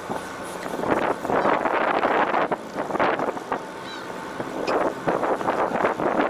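Gusty wind buffeting the microphone in uneven surges over the steady background noise of a boat at sea.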